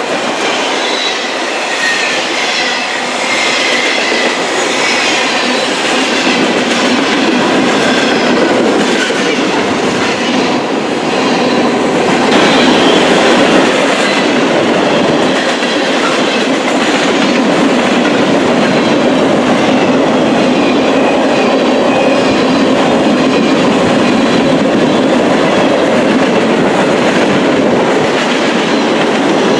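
Freight train cars rolling past close by: steady rolling noise of steel wheels on rail, with faint high-pitched squeals through the first ten seconds or so.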